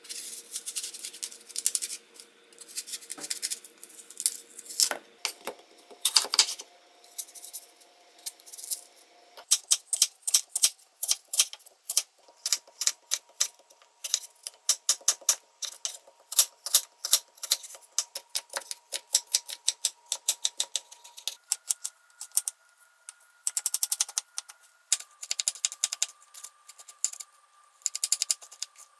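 Chef's knife cutting an apple on a wooden cutting board: sharp knife strokes through the fruit and onto the board, few at first, then a quick run of several strokes a second as the apple is sliced and diced.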